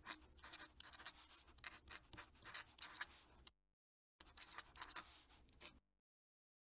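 Faint scratching of a fountain pen nib on paper as a signature is written in quick strokes. The writing stops briefly just past halfway, then a second shorter run of strokes follows.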